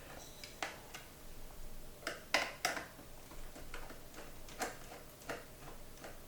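Scattered small clicks and taps, irregularly spaced, of a screwdriver and wire ends being worked into the screw terminals of a radio power supply's terminal block.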